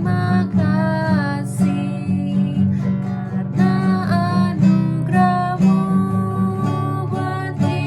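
Acoustic guitar strummed in a steady rhythm, with a melody line moving over it.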